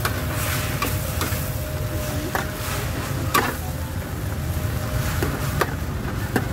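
Sizzling of yellow pancake batter frying in a pan, with a few sharp clinks spread through, over a steady low rumble of background noise.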